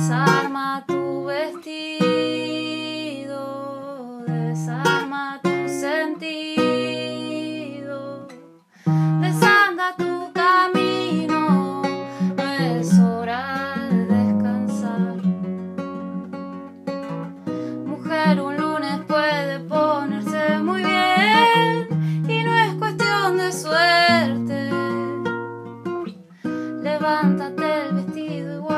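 Background music led by acoustic guitar, breaking off briefly about eight and a half seconds in and then carrying on.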